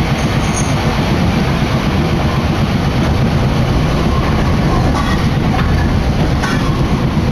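Sapporo city tram running along the line, heard from inside the car: a steady loud rumble of wheels on rails and running gear, with a few faint clicks near the end.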